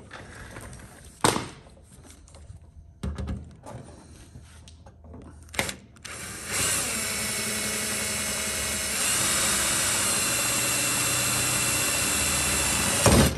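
Bosch cordless drill running steadily as its bit drills through the aluminium fuselage skin into the strap behind it. The drill starts about halfway through, gets louder about two and a half seconds later, and stops suddenly near the end. Before it starts there are a few short knocks.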